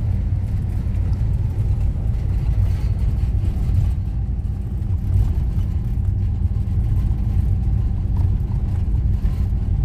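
Renault Master camper van driving along the road: a steady, even low rumble of engine and road noise with no change in pace.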